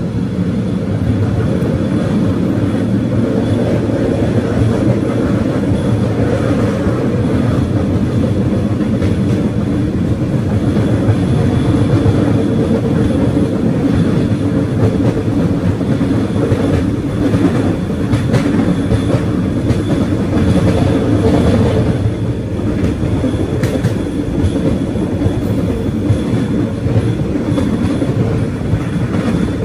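A Cambodian bamboo train (norry) running along the rails. Its small engine runs under a steady rattling clatter of the wheels over the track.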